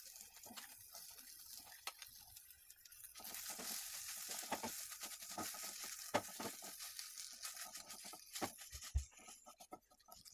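Faint sizzling in a non-stick frying pan as boiled potato is stirred into fried onion and tomato, with a wooden spatula scraping and tapping against the pan every second or two. The sizzle dies down near the end.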